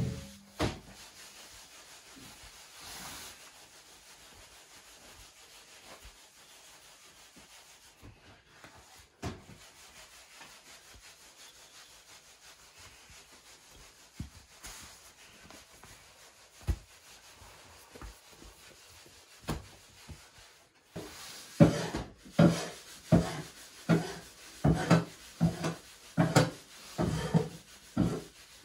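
A small metal tool scraping and pressing into bread dough on a cloth-covered wooden table. It is faint at first, with a few soft ticks. About two-thirds of the way in it turns into a steady run of rubbing strokes, nearly two a second.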